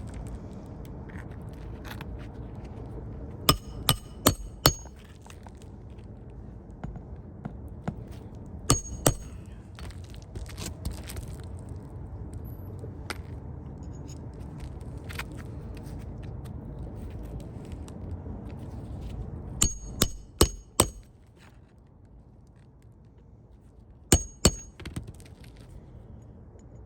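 Hammer driving roofing nails into an asphalt shingle: four bursts of two to four sharp, ringing strikes in quick succession, over a steady low background noise.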